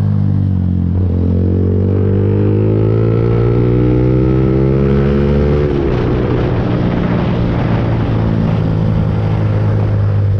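Lexmoto Viper 125's single-cylinder four-stroke engine running under way: its note dips briefly about a second in, then climbs slowly as the bike gathers speed. About halfway through the steady note breaks up into a rougher, noisier sound.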